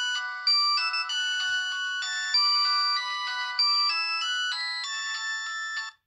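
Doro HandlePlus 324 GSM mobile phone ringing with an incoming call: an electronic ringtone melody of short stepping notes, cutting off suddenly near the end.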